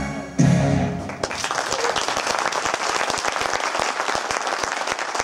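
Stage music ends on a last loud note about half a second in, and an audience breaks into sustained applause, many hands clapping.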